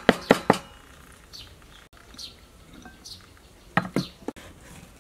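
Cleaver chopping turmeric on a wooden chopping board: a few quick strokes, about four a second, that stop within the first second. Then a quiet stretch with a few faint bird chirps, and a couple of sharp knocks near the end.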